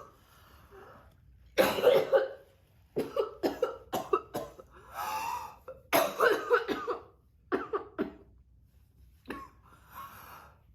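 A woman coughing repeatedly in several short fits a second or two apart, from the burn of capsaicin in her throat.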